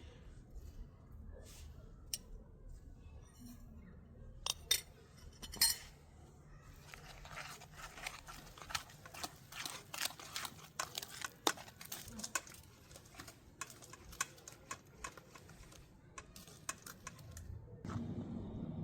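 Utensils and hands working a bowl of food, with scattered clicks and clinks and a dense stretch of quick scraping clicks in the middle. A low steady hum comes in near the end.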